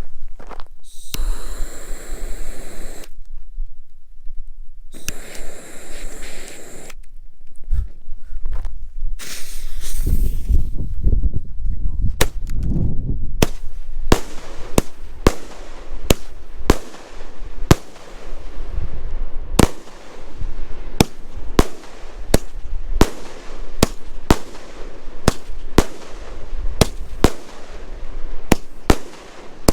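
A 37-shot 'American Honor' consumer fireworks cake firing. After a first half of rough outdoor noise, a steady string of sharp reports starts about halfway through, roughly two a second, each with a short echoing tail as the shells lift and break.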